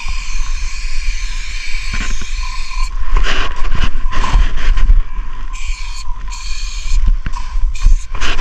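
Aerosol spray paint can hissing steadily as silver paint goes onto a concrete wall. About three seconds in, the hiss breaks up into stop-start bursts mixed with irregular crunches and knocks.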